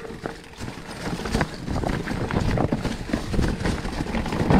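Specialized Turbo Levo electric mountain bike descending a rough, rocky trail: tyres thudding and crunching over rocks and dry leaves, with irregular clattering knocks from the bike and its suspension.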